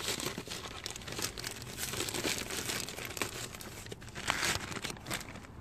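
Crinkling and rustling as a pleated activated-carbon cabin air filter is handled, with a louder flurry of crinkles about four and a half seconds in.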